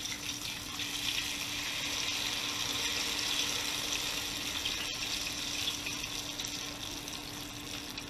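Battered sturgeon chunks deep frying in hot oil in an electric deep fryer: a steady, bubbling sizzle.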